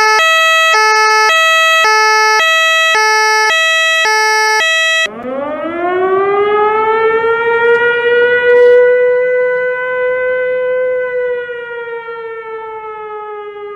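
A two-tone hi-lo emergency siren alternates between two pitches about every two-thirds of a second. About 5 seconds in it cuts to a mechanical wind-up siren, which rises in pitch over a few seconds as it spins up, holds, then slowly winds down.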